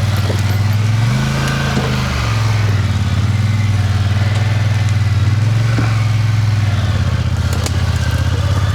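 Polaris Sportsman ATV engine running steadily at low speed while the machine works slowly through brush. Its pitch rises briefly about a second in, then drops back.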